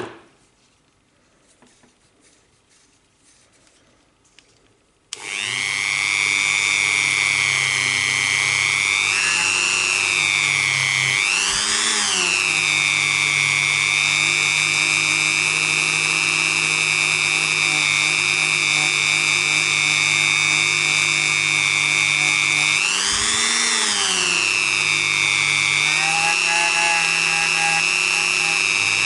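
Dremel rotary tool starting up about five seconds in and running steadily with a high whine, spinning a polishing bob against the feed ramp of a 1911 frame. Its pitch rises and falls briefly twice.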